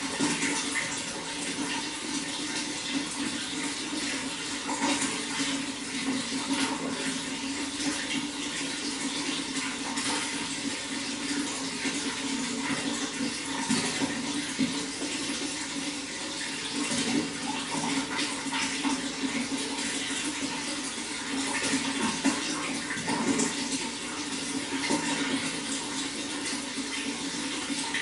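Running water flowing and splashing steadily.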